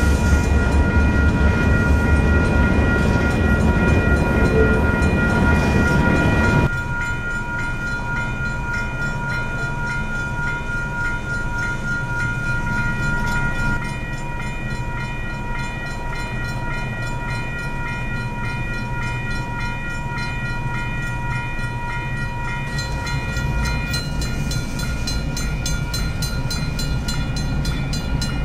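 Union Pacific intermodal freight train rolling through a grade crossing, its wheels rumbling, while the crossing bell rings steadily. A heavy low rumble drops suddenly about seven seconds in, leaving a lighter rumble of passing cars, with rhythmic wheel clacks near the end.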